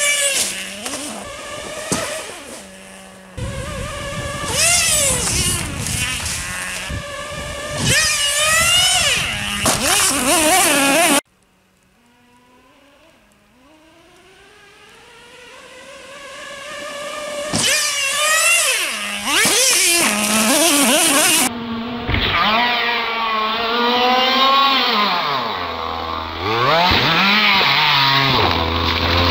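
Traxxas Nitro Rustler 2.5's small two-stroke nitro engine revving high and letting off again and again as the RC truck runs at speed, its pitch sweeping up and down. About a third of the way in the sound drops away suddenly, then the engine grows steadily louder as the truck comes back closer.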